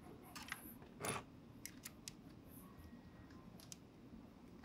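Faint small clicks and scrapes of a hex key turning M3 countersunk screws into brass threaded inserts in a 3D-printed rail mount, with one slightly louder scrape about a second in.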